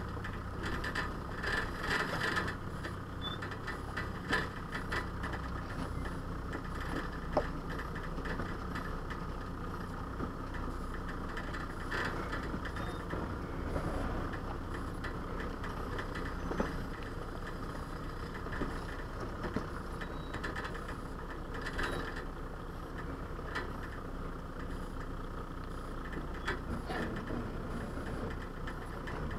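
Off-road 4x4's engine running steadily at low speed as it crawls over a loose rocky track, with scattered knocks and rattles from the vehicle jolting over the rocks.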